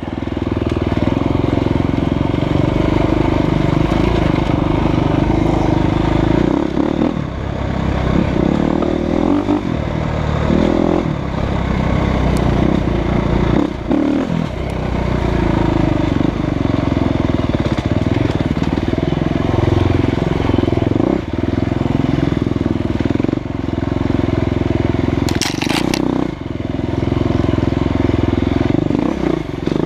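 Husqvarna FE350's single-cylinder four-stroke dirt bike engine running under load on a rough trail, heard from the rider's helmet. The revs drop and pick up again several times as the throttle is rolled off and on.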